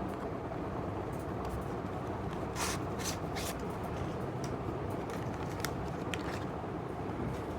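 Packaging of a small toy figure being handled and opened: scattered light clicks and a few short crinkling rustles about three seconds in, over steady low background noise.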